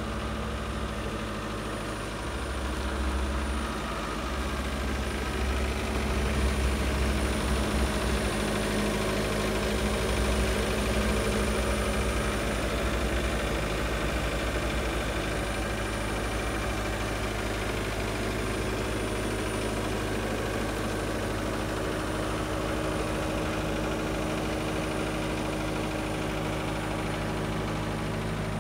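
Caterpillar 257B2 compact track loader's diesel engine idling steadily.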